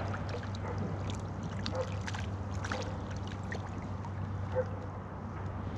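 Water lapping and trickling against a kayak hull, with scattered small clicks and knocks over a steady low hum.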